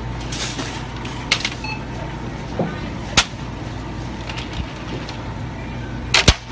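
Black plastic shopping basket clacking a few times as it is picked up and carried, with a double knock near the end the loudest, over a steady low hum of the store.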